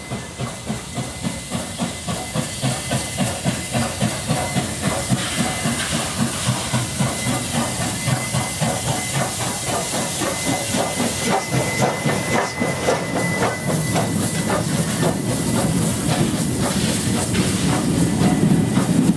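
NSWGR 36 class 4-6-0 steam locomotive working slowly past at close range: hissing steam over a steady rhythm of exhaust beats, with a faint thin steady tone above. Near the end a heavier rumble grows louder as the tender rolls by.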